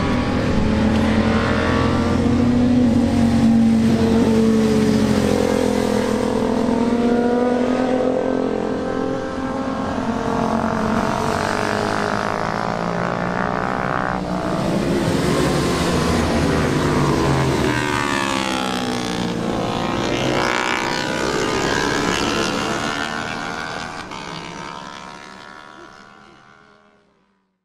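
Several motorcycles on a race circuit, engines revving and passing by, their pitches rising and falling and crossing one another. The sound fades out near the end.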